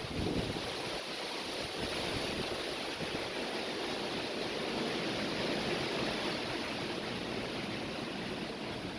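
Very strong wind blowing, a steady rushing noise with only slight rises and falls.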